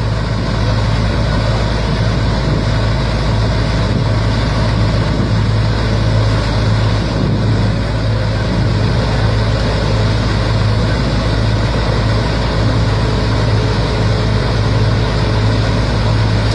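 Punni multi-crop combine harvester running as it cuts and threshes wheat: a loud, steady machine drone with a strong, constant low hum. The tractor pulling the grain trolley alongside runs in the same drone.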